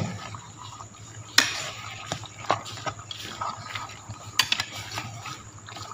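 Metal spatula stirring chicken pieces in sauce in an aluminium wok: wet scraping and clinking against the pan, with a few sharper knocks about one and a half, two and a half and four and a half seconds in.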